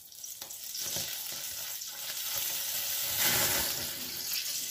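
Butter sizzling as it melts and heats in a steel ladle held over a gas burner. The sizzle grows about a second in and is loudest a little past the middle.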